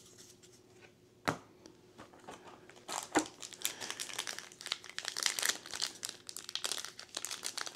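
A foil trading-card booster pack crinkling and rustling as fingers grip and work at its top seal to tear it open, starting about three seconds in; these packs are hard to tear. A single sharp tap about a second in.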